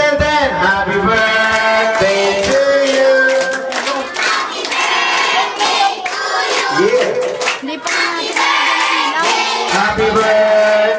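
A group of children and adults singing together, with hand clapping running through the singing.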